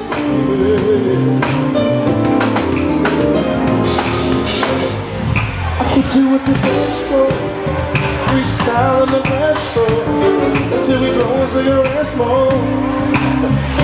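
Live soul and funk band playing: bass, drums and keyboards in a steady groove, with a sung or held melody line over it.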